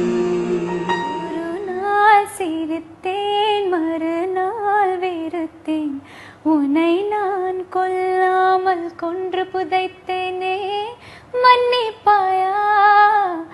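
A woman singing solo and unaccompanied: long, ornamented melodic phrases that glide and waver in pitch, with short breaks between them. In the first second a man's voice with instrumental backing fades out.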